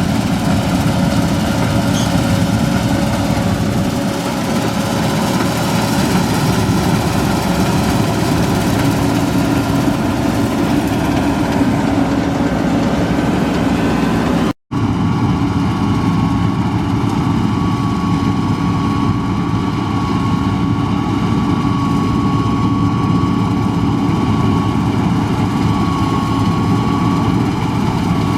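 Combine harvester running steadily in a soybean field, a constant engine and machinery drone with a few held tones. It cuts out for a split second about halfway, then carries on with a slightly different steady whine.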